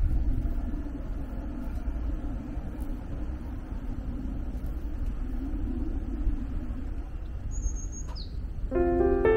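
Low, steady outdoor rumble with a single short, high bird call that sweeps down near the end. A gentle piano melody starts just before the end.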